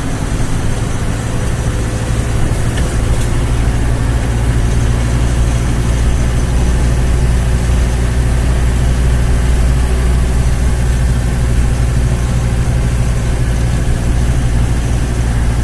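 Engine of a moving vehicle running steadily, a low, even hum with road noise.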